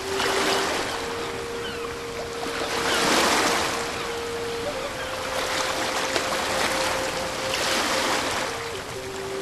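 Ocean surf washing in, swelling in surges every two to three seconds, under a soft sustained musical tone that steps up in pitch and later drops back.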